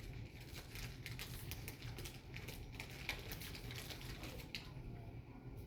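A quick, irregular run of light clicks and scratches, like tapping or small claws on a hard surface, stopping about four and a half seconds in, over a faint low background hum.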